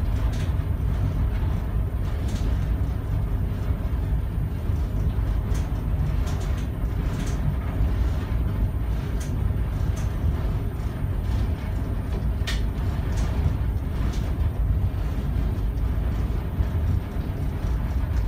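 Towboat's diesel engines running steadily under load as it pushes a barge tow: a low, even rumble heard inside the pilothouse, with a few faint ticks.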